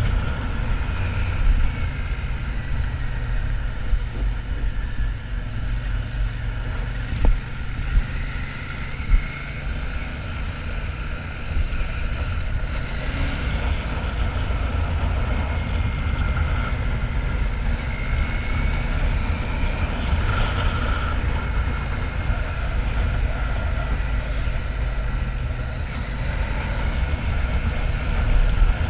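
Royal Enfield Shotgun 650's parallel-twin engine running steadily on the road, under a heavy low rumble of wind on the microphone. A few brief thumps come about four to nine seconds in.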